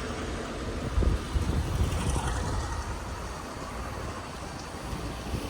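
Wind buffeting the microphone with road noise while riding a quiet electric bike, the low rumble gusting hardest about a second in.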